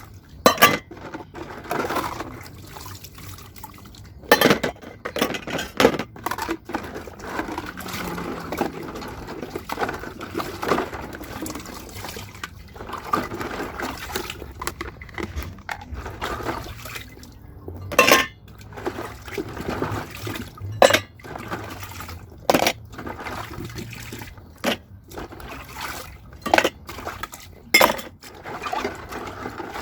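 Dishes being rinsed by hand in a basin of clean water: water sloshing and trickling, with repeated sharp clinks and knocks of cups and plates against each other and the basin.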